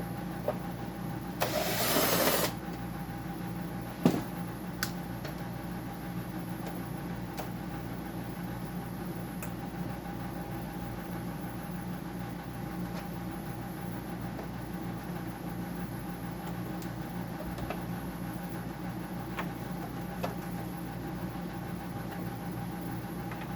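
Steady hum of a running dehumidifier's compressor and fan, several even tones held throughout. About two seconds in there is a one-second burst of hiss, and a sharp click comes about four seconds in, followed by a few light clicks of tools being handled.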